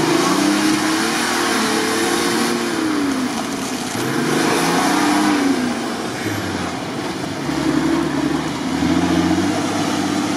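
Nissan Patrol Y61 off-roader's engine revving up and down in about three surges under load as it tries to climb a near-vertical muddy bank.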